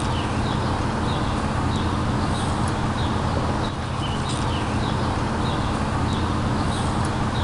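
Short, faint, high bird chirps about once a second over a steady outdoor background rush.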